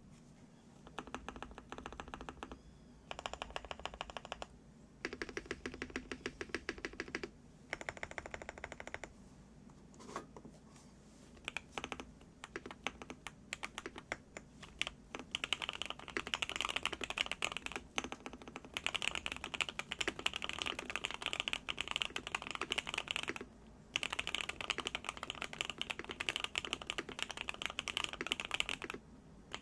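Qwertykeys QK65 mechanical keyboard with hand-lubed Gateron Oil King linear switches, a POM plate and CMK keycaps being typed on. Short bursts of rapid keystrokes with pauses in the first half, then fast, near-continuous typing from about halfway, broken by two brief stops.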